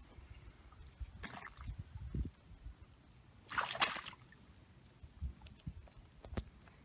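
Boots shifting in shallow water on wet, slushy lake-shore ice: faint sloshing and small knocks, with two brief louder crunches, one about a second in and one near the middle.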